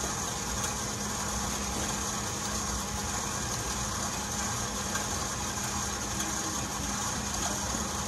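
Stand mixer running steadily with a constant hum, its paddle beating hot, freshly cooked pâte à choux dough to cool it down.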